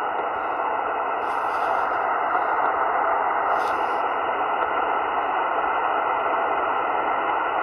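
Shortwave transceiver receiving upper sideband on the 20-meter band, its speaker giving a steady hiss of band noise with no station audible: a gap between transmissions of a weak distant station. Two faint, brief rustles come about a second and a half in and again about two seconds later.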